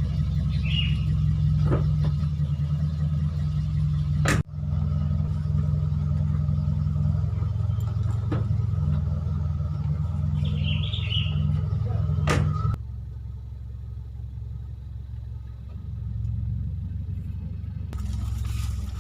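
A motor vehicle's steady low engine and road rumble, broken by two sudden cuts; it drops quieter about two-thirds of the way through.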